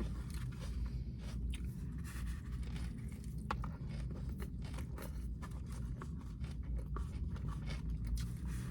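Close-mic chewing of a mouthful of taco: irregular wet mouth clicks and soft crunches.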